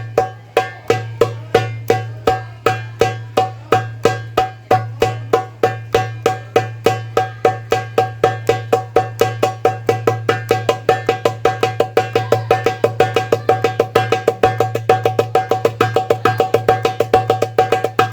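Darbuka being struck in a steady stroke pattern that gradually speeds up into a dense, rapid roll: practice of the darbuka triple roll. The strikes have a sharp attack and a short ring.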